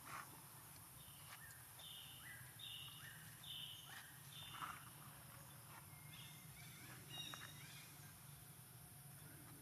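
Faint series of about seven short high-pitched animal calls, evenly spaced about once every two-thirds of a second. Each call steps from a lower note up to a higher held note, and the series pauses briefly near the middle.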